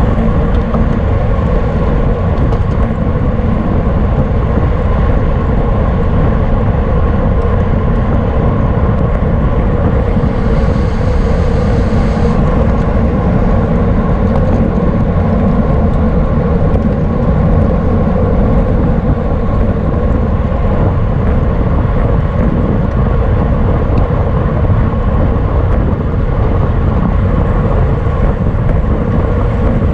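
Steady, loud wind buffeting on the microphone of a camera riding along on a racing bicycle, mixed with road rumble. A brief higher hiss sounds about ten seconds in and lasts about two seconds.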